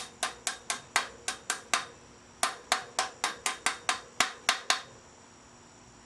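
Hammer tapping on metal with quick, light blows in two runs of about eight and ten taps, stopping about five seconds in. The taps seat the crank bearing races in a bicycle frame's bottom bracket.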